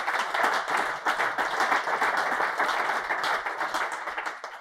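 Audience applauding: many hands clapping together, which dies away near the end.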